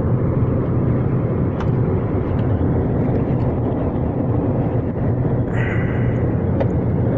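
Steady road and engine noise inside a car cabin at highway speed, a constant low rumble, with a few faint clicks and a short rustle partway through.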